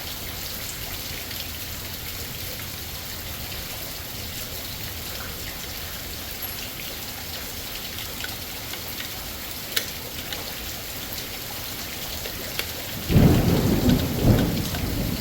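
Steady heavy rain, with a sharp tick about ten seconds in. Near the end, a loud low rumble of thunder breaks in over the rain.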